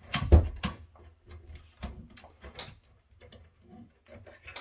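Clicks and knocks of hard equipment being handled on a bench, with a heavier thump just after the start and lighter irregular ticks after it.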